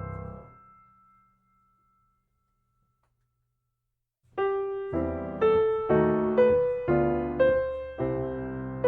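Background piano music: a held chord fades away in the first second, a pause of about three seconds follows, then a new phrase begins with notes struck about twice a second.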